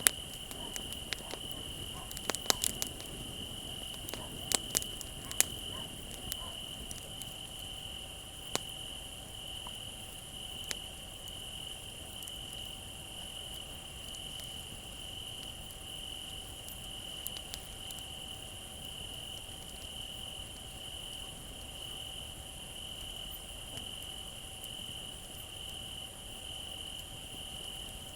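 Crickets chirping in a steady, pulsing trill, with sharp crackles and pops from a wood fire, most of them in the first ten seconds.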